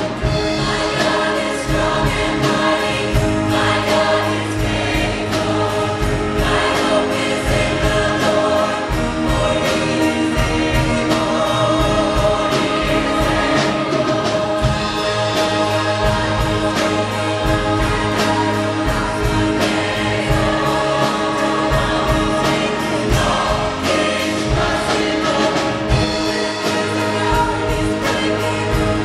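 Large mixed choir of men and women singing, with accompaniment keeping a steady beat.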